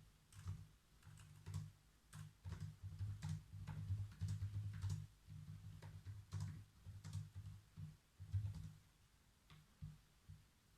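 Typing on a computer keyboard: irregular runs of keystrokes, thinning out to a few separate taps in the last couple of seconds.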